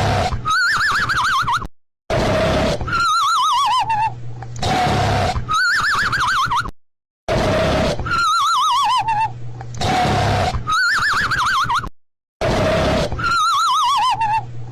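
Cartoon snoring sound effect: a raspy snore alternating with a high, wavering whistle, which falls in pitch on one breath and rises on the next. The cycle repeats about every five seconds, with a brief dead-silent gap where the loop restarts.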